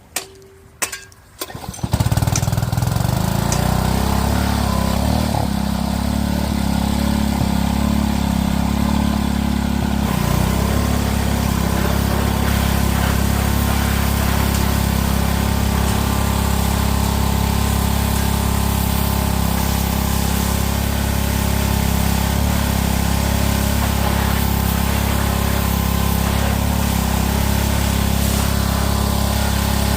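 Small single-cylinder gas engine of a Craftsman pressure washer (206 cc Intech) starting about two seconds in, then running steadily.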